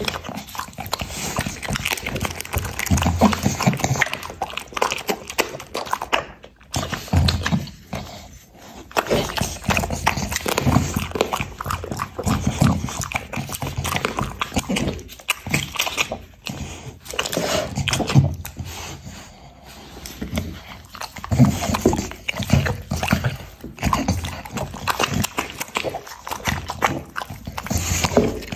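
Bulldog eating, chewing and smacking its lips over a ball of minced meat, in an irregular run of bites and licks, with a short break about six and a half seconds in.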